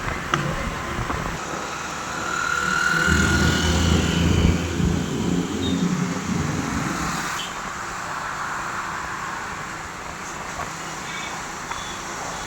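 Road traffic: a steady wash of vehicle noise, with a nearby vehicle's engine growing louder for a few seconds around the middle and then fading.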